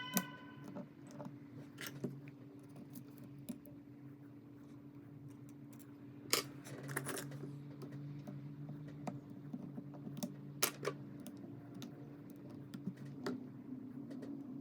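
Scattered sharp clicks and taps of small hand tools working on a phone during a back-glass repair, the loudest about six seconds in and two more near eleven seconds, over a steady low hum.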